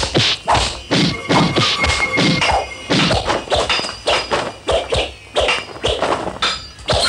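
Martial-arts fight sound effects: a rapid string of punch and kick whacks and thuds, about three a second.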